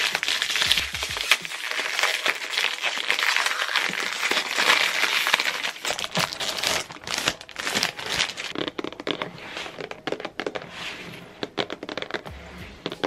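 Plastic wrapping crinkling and crackling as it is peeled off and crumpled from a cardboard toy box. About seven seconds in it thins to scattered crackles and taps as the box is handled.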